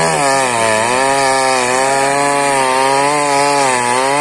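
Gasoline chainsaw cutting into a tree trunk, the engine running at high speed. Its pitch dips about half a second in as the chain bites, then recovers and wavers up and down as the cut goes on.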